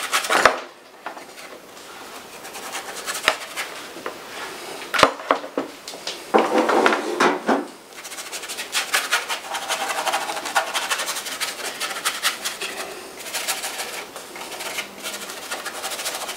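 Flat paintbrush scrubbing and dabbing acrylic paint onto a canvas board: a dry rasp of bristles on the painted surface, in uneven strokes with small taps.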